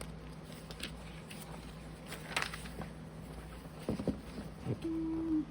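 Glossy magazine pages being turned and handled: a few soft paper rustles and light handling noises over a steady low hum, with a brief steady hum-like tone near the end.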